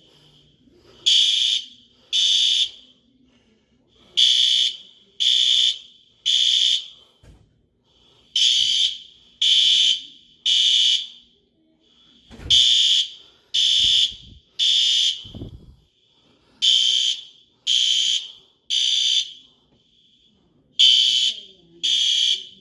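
Building fire alarm sounders beeping in the Code 3 temporal pattern: three loud, high beeps about a second apart, a short pause, then three more, repeating steadily.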